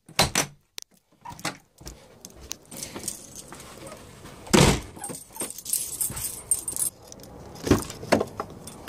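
Keys jangling and clicking in a front-door lock as it is locked, with a single heavy thud about halfway through. Near the end, two sharp clicks as a car door handle is pulled.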